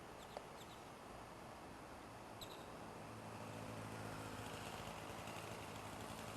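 Faint outdoor ambience: a steady hiss with a few short, high bird chirps near the start and again about two and a half seconds in, and a low steady hum that grows louder from about three seconds in.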